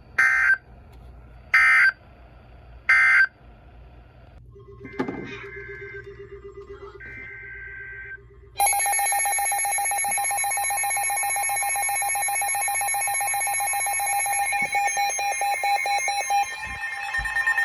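Weather radio alert signals: three short buzzing data bursts about a second and a half apart, the coded end-of-message that closes the watch broadcast. Fainter tones follow. About eight and a half seconds in, a loud steady electronic alert alarm starts, signalling a new warning.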